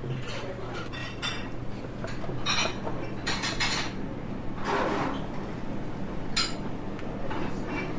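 Small clinks and knocks of crockery and cutlery on a table, a handful of separate light strikes, with a soft rustle about five seconds in, over a low steady hum.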